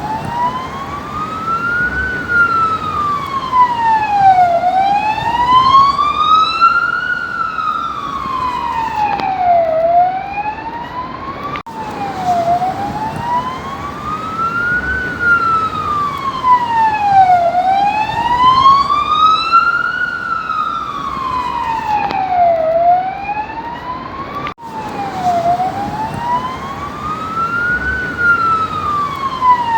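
Police car siren sounding its wail tone: a slow rise and fall in pitch, one full cycle about every five seconds. It breaks off for an instant and restarts about every thirteen seconds.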